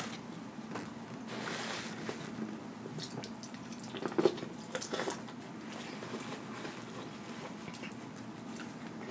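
Close-miked eating of corn on the cob: wet mouth and lip sounds, then a bite into the cob about four seconds in with a short run of sharp crunches from the kernels, followed by chewing.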